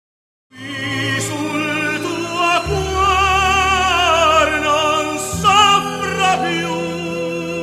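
Operatic singing with wide vibrato over sustained low accompaniment, starting suddenly about half a second in after silence.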